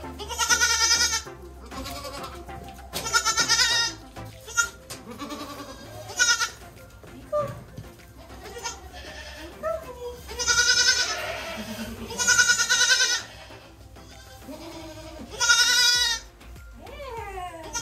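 Goats bleating: about six loud, wavering bleats spaced a few seconds apart.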